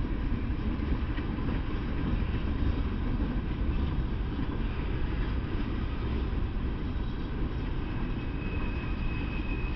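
Norfolk Southern freight train's open-top coal gondolas rolling past on the rails: a steady, continuous low rumble of wheels on track. A faint high-pitched tone joins in near the end.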